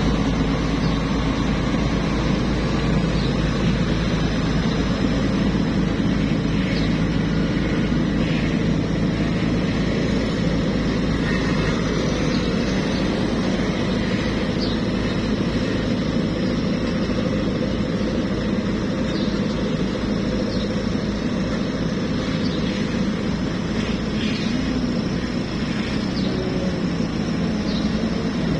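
Heavy machine's engine running steadily, with a few faint short high squeaks scattered through it.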